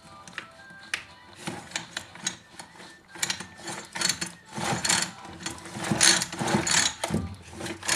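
Irregular clicking, knocking and scraping of hand tools and plastic and metal parts being handled while a Husqvarna 340 chainsaw is put back together. The handling grows busiest in the second half.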